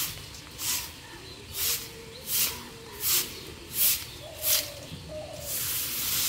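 A stiff coconut-leaf broom sweeping leaves across a concrete path: a sharp scratchy swish about every three-quarters of a second, six strokes in a row, then a longer drawn-out sweep near the end.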